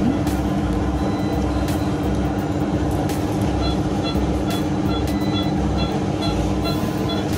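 Operating-theatre background: a steady hum over low noise from the equipment. In the second half, faint quick beeps from the patient monitor, about three a second: a pulse-oximeter tone keeping pace with a newborn's fast heart rate.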